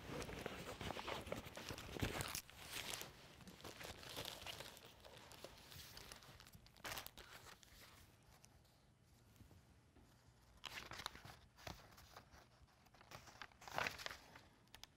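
Paper and a canvas tote bag rustling as handwritten notes are pulled out and leafed through: short, scattered rustles, busiest in the first few seconds, with a louder crinkle near the end.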